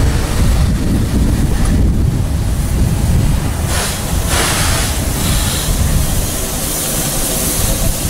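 Harz narrow-gauge 2-10-2T steam tank locomotive 99 7247-2 rolling slowly into the station, a continuous low rumble with steam hissing, and two sharp hisses of steam about four seconds in.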